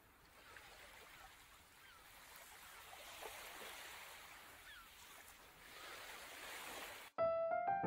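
Faint lakeside ambience: a soft hiss that slowly grows louder, with small bird chirps now and then. Piano music cuts in suddenly near the end.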